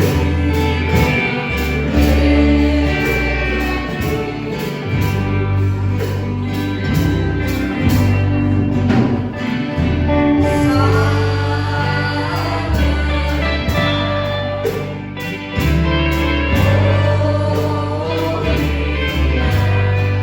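Gospel music: voices singing over a band with a sustained bass line whose notes change every second or two.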